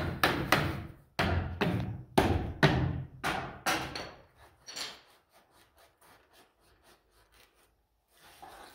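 Hammer striking wooden wedges under a temporary support post, about ten sharp knocks in the first four seconds, then a few lighter taps. The wedges are being knocked out while they are still under tension from the load.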